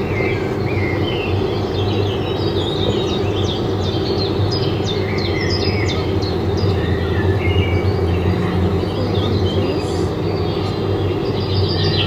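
Small birds chirping repeatedly in short, high calls over a steady low background rumble.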